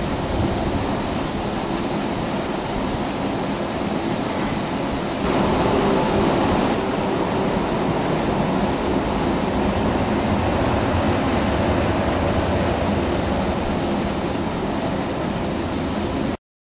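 Steady rushing noise, wind on the microphone mixed with the low rumble of an electric commuter train car rolling slowly along the depot tracks. It grows a little louder about five seconds in and cuts off suddenly near the end.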